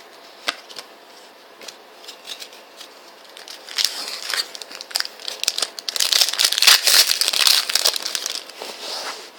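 A trading-card pack's plastic wrapper being handled, torn open and crinkled. A few light clicks and rustles come first, then dense crinkling sets in about four seconds in and is loudest a couple of seconds later.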